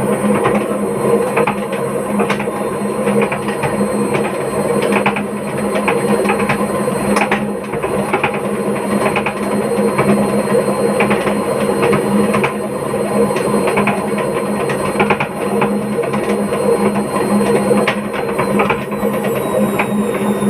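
Hotpoint-Ariston washing machine on its spin cycle, running with a steady hum and loud, irregular knocking from the drum. Near the end a high motor whine falls in pitch.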